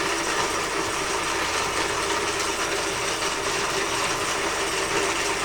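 Motor-driven robot arm joint turning through its harmonic drive, a steady mechanical gear sound that runs without a break.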